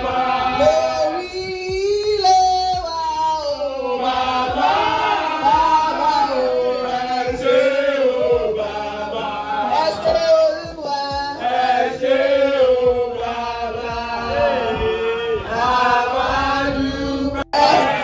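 A group of people singing a praise and worship song together, voices carrying one melody in chorus.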